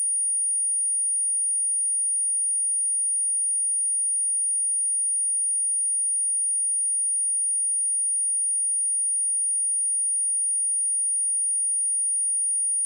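A single steady, high-pitched pure sine-wave test tone at 9557 Hz, held at one constant pitch and level. It is a speaker test tone, also used as a speaker-cleaning tone to shake water and dust out of a speaker.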